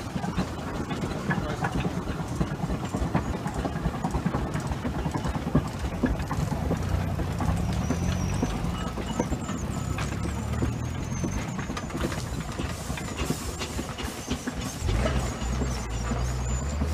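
Small steam traction engine driving slowly past, a dense rapid clatter of its working motion and steel-rimmed wheels on the road.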